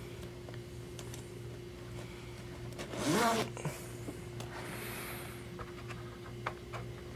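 Zipper on the leather leg-rest cover of an Osaki OS-4000 massage chair pulled shut in one quick stroke about three seconds in, with a softer rustle a couple of seconds later and faint handling clicks around it. A steady low hum runs underneath.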